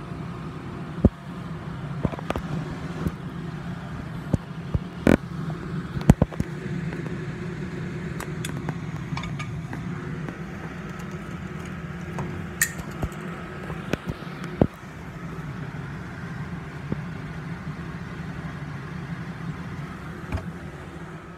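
A steady low mechanical hum, with scattered sharp clicks and knocks from handling kitchenware and the phone.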